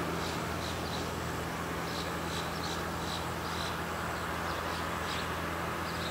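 Distant steady drone of a Basler BT-67's twin Pratt & Whitney PT6A turboprop engines as the aircraft climbs away. Short high chirps come and go over it.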